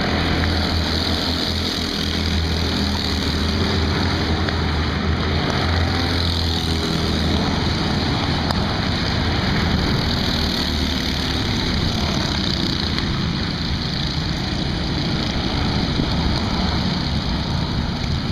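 Several small go-kart engines running as the karts lap the track, a steady mechanical drone with a strong low hum over about the first six seconds.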